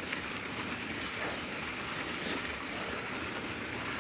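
Steady noise of a mountain bike being pedalled up a steep dirt climb in its lowest gear, tyres running over the trail surface.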